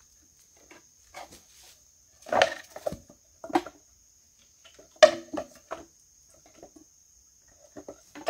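Wood knocking and clattering as it is handled, with sharp knocks about two and a half, three and a half and five seconds in. A steady high insect trill runs underneath.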